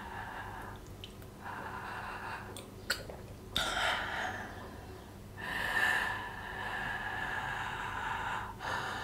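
A person breathing heavily through a wide-open mouth in several long, airy breaths with short pauses between them, and a short wet mouth click a little before three seconds in.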